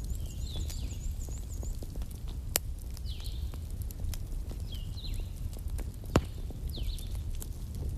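Wood fire in a fireplace crackling over a steady low rumble of the flames, with two sharp pops about two and a half and six seconds in. Faint high chirps recur every couple of seconds.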